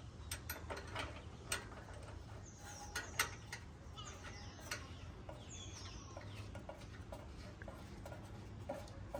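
Faint clicks and taps of the dipstick being threaded back into the Kohler K181's oil fill tube, with a few short high chirps of birds in the background.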